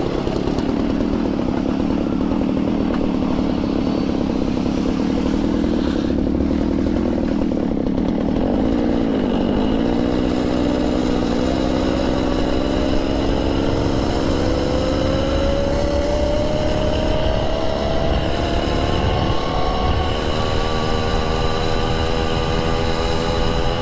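Small two-stroke bicycle engine running under throttle. Its pitch holds steady at first, then climbs from about halfway through as the bike gains speed, and stays high near the end.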